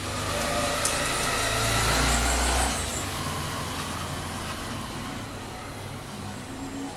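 A motor vehicle engine running, growing louder over the first two to three seconds and then dropping off suddenly, leaving a lower steady hum.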